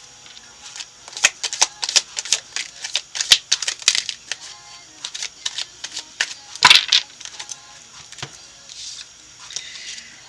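Tarot cards being shuffled and handled: a quick, uneven run of crisp clicks and flicks of card stock, with one louder swish about two-thirds of the way through. Quiet background music plays underneath.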